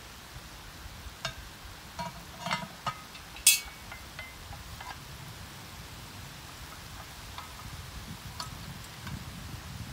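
Hand-forged iron lid lifter clinking against a cast iron Dutch oven lid and pot: a few light clinks as it is taken from the rack and hooked under the lid's handle, then one sharp ringing clink about three and a half seconds in as the lid comes off the pot. A couple of faint clinks follow near the end as the lid is set down.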